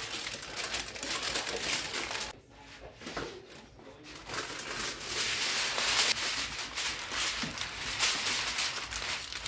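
Aluminium foil crinkling and rustling as it is pulled over and pressed around a baking pan, in irregular crackles, with a quieter lull about two to four seconds in.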